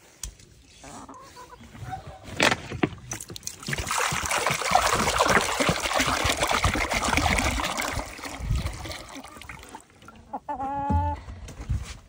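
Chickens clucking and bustling close by, loudest in the middle stretch. A short, pitched animal call comes near the end.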